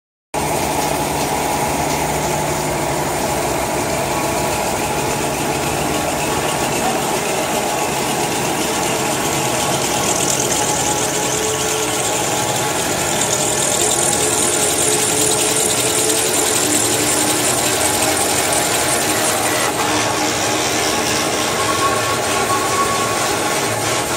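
Toilet paper and kitchen towel rewinding machine running, a steady mechanical whir and hum as the paper web feeds off the jumbo roll over the rollers. A higher hiss grows stronger about ten seconds in and eases off again near twenty seconds.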